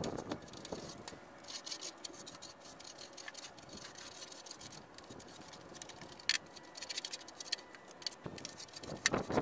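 Scattered light clicks and taps of a metal scraper handled on a steel door panel covered in stripper-softened paint, with a few sharper taps in the second half.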